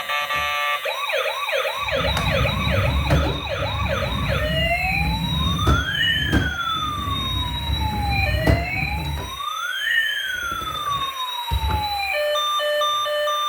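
Electronic siren of a toy emergency vehicle. A fast yelp rising and falling about three times a second gives way after about four seconds to slower wailing sweeps, two at once. Near the end it changes to a steady pulsed beeping. A low rumble runs underneath for several seconds in the middle.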